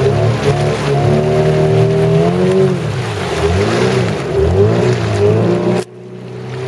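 Outboard motor of an inflatable boat running under way, its pitch rising and falling a few times. The sound cuts out abruptly near the end and comes back moments later.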